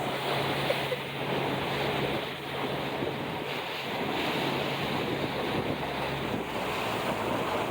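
Wind buffeting the microphone over the sea, with the wash of waves and a low steady hum that stops about six seconds in.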